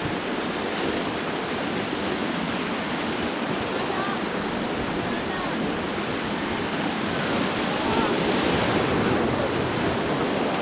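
Steady rush of a fast mountain river's white water, heard from a raft on the rapids, with faint voices in the background.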